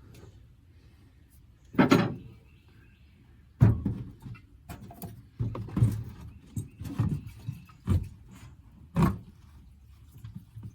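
A series of about seven irregular knocks and clunks, the loudest about two seconds in, with quiet in between.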